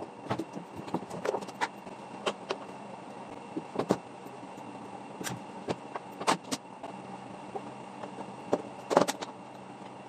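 Irregular plastic clicks and knocks as a top-load washing machine's plastic top cover and control-panel housing are handled and shifted, with a louder cluster of knocks near the end. A faint steady hum runs underneath.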